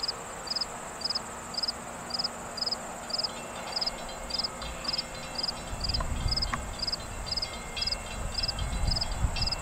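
Crickets chirping in an even rhythm, between two and three chirps a second, over a steady high insect buzz. From about halfway through, the low rumble of the approaching EMD GP38 diesel locomotive and its freight cars builds up.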